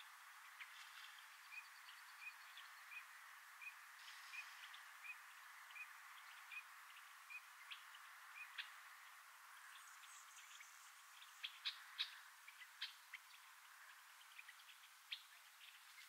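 Faint bird calls over a steady hiss: a short, high note repeated evenly about every 0.7 s for several seconds, then a cluster of sharp chirps a little after halfway through.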